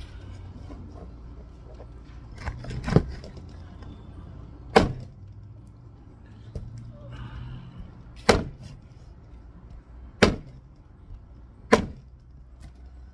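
Meat cleaver chopping a raw duck into small pieces on a wooden board: about six sharp chops, a second or two apart.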